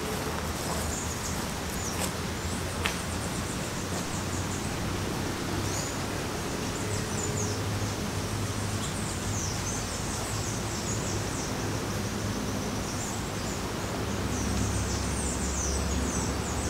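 Outdoor forest ambience: a steady background hiss with short, high-pitched bird chirps coming and going, more of them near the middle and toward the end.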